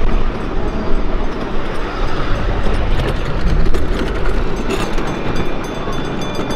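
Miniature ride-on train running along its track, a steady rumble of wheels and carriages with a few sharp clicks.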